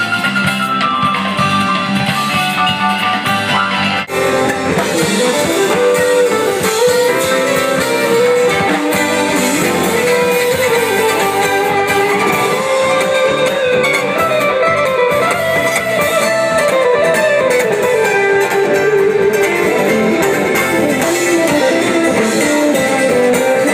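A live rock band playing, with an electric guitar taking a wandering lead line over the band.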